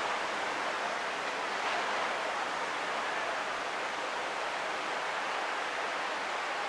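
Steady, even wash of ocean surf breaking on a sandy beach.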